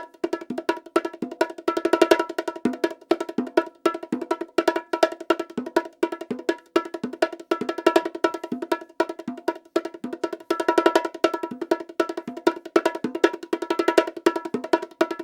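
Bongos played by hand in a fast, steady rhythmic pattern, the two drums' high, ringing strokes alternating.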